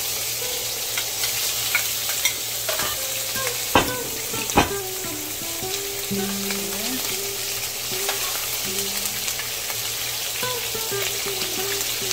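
Shrimp sizzling as they fry in oil in a nonstick frying pan, with a metal spatula stirring and turning them. Two sharp knocks come a little under a second apart about four seconds in.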